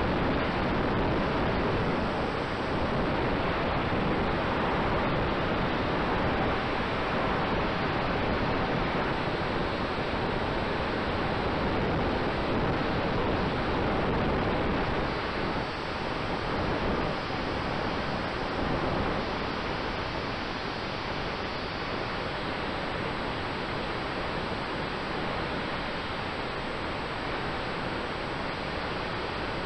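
Steady rushing wind noise on the microphone of an onboard camera riding a large-scale model biplane in flight, with a faint steady whine underneath; it eases slightly about halfway through.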